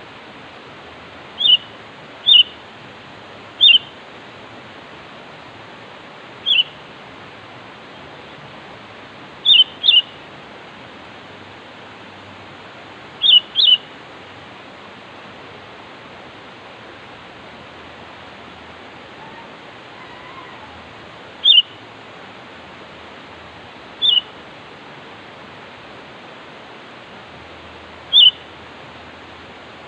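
Sooty-headed bulbul giving short, sharp calls, about eleven of them spread out every few seconds, several in quick pairs, over a steady hiss. This is the bulbul's challenge call, used to draw rival birds.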